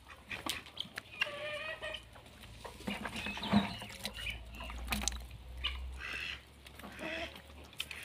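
A flock of hens clucking and calling while they feed: a string of short clucks with one longer, drawn-out call about a second in, and scattered sharp clicks.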